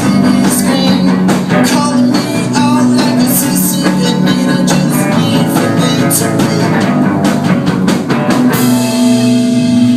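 Live rock band music with guitar and drums, without vocals, settling into a held, ringing chord near the end.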